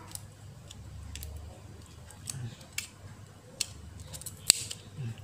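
Thin metal pry blade clicking and scraping against a smartphone's small circuit board and frame as the board and its antenna cable are prised loose: irregular light clicks, with one sharp click about four and a half seconds in.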